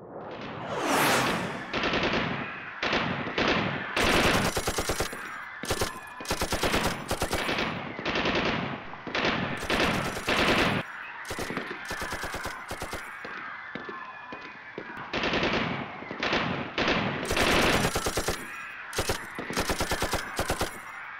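Bursts of automatic gunfire, rapid shots in runs of about half a second to a second, one after another. A swooshing sweep comes near the start.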